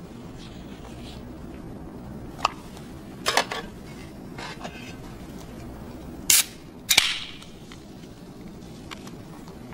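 Glassware and bottles clink at a drinks trolley while a drink is made up, with a few light clinks. About six and seven seconds in come two sharp snaps; the second is a soda can's pull tab popping open, with a short fizz.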